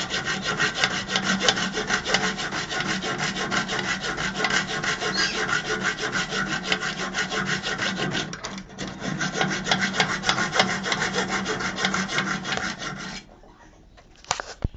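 Rapid, even abrasive scraping on a part, with a steady low hum underneath. It dips briefly about eight seconds in and stops abruptly about thirteen seconds in. Two short sharp clicks follow near the end.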